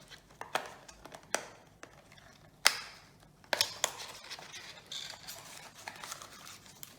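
Cardboard box and paper packaging being handled and rummaged through: a series of crinkles and sharp clicks, the sharpest a little under three seconds in, followed by a few seconds of rustling.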